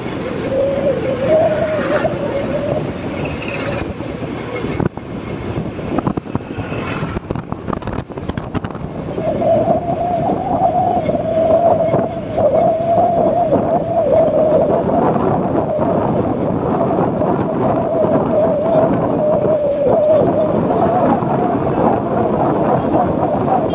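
Wind buffeting and road noise from a moving vehicle, with a steady, slightly wavering engine drone. The drone fades for a moment about a third of the way in, then returns louder as the rumble grows.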